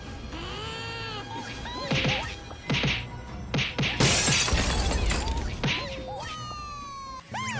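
Cartoon sound effects over background music: several sharp whacks and a loud shattering crash about four seconds in, among sliding whistle-like tones that rise and fall.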